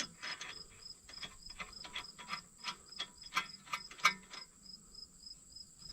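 Ratchet wrench clicking in short irregular runs as a nut is turned on the new tie rod. The clicking stops about four seconds in.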